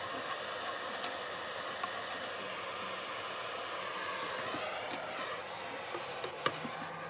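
Handheld butane cassette-gas torch burning steadily as its flame is played over a wooden board to melt a beeswax finish into it.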